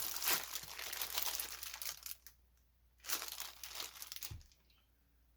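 Packaging crinkling as the printer kit is handled, in two stretches, with a soft knock near the end.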